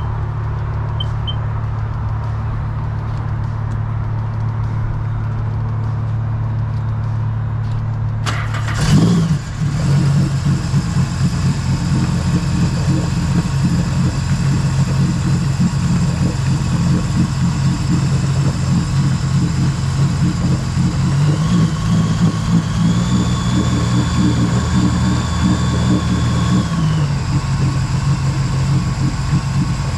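A 2016 Sea-Doo RXP-X jet ski's freshly rebuilt engine running on its trailer at the ramp, now firing on all cylinders after a clogged injector was replaced. It idles steadily, then about nine seconds in turns louder and rougher. About two-thirds of the way through the revs rise briefly and drop back.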